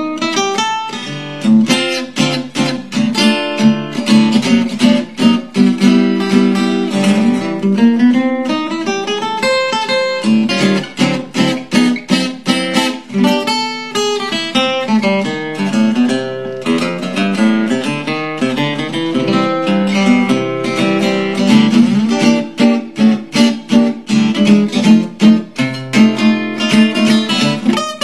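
A 1947 Epiphone Blackstone acoustic archtop guitar with a carved spruce top and laminated maple back, played unaccompanied: rhythmic chord strums mixed with single-note melody lines and bass notes.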